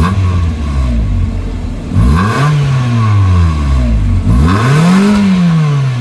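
Exhaust of a 1997 Toyota Tercel's 1.5-litre four-cylinder engine revved three times from idle, the pitch jumping up each time and sinking slowly back down.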